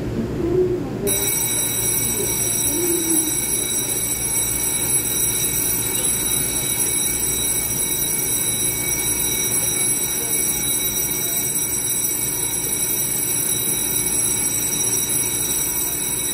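Station platform departure bell ringing continuously from about a second in, then cutting off suddenly, the warning that the train is about to close its doors and leave. Under it is the steady low hum of the stopped EMU3000 electric train.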